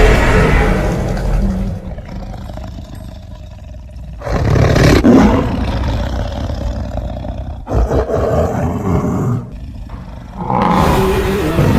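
Dinosaur roar sound effects: a loud roar that dies away, low growling, then fresh roars about four seconds in and again near the end.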